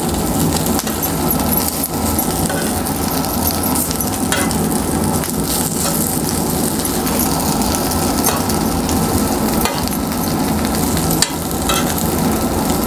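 Rava-coated brinjal slices sizzling steadily in oil on a flat tawa griddle. A metal spoon scrapes and clicks against the pan now and then as the slices are flipped one by one.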